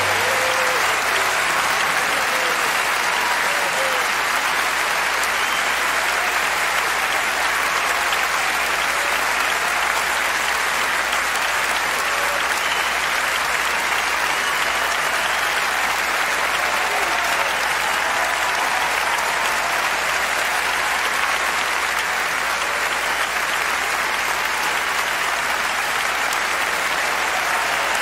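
Large concert audience applauding steadily after a song ends, a long unbroken ovation.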